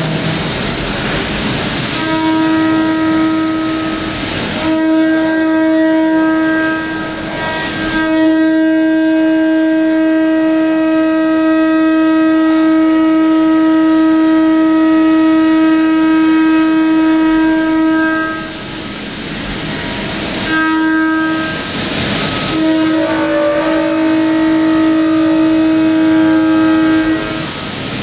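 Ceramic milling cutter on a Starrag LX 251 cutting an Inconel turbine blade, throwing sparks. It gives a steady whine with overtones, broken several times by a second or two of harsher hissing noise.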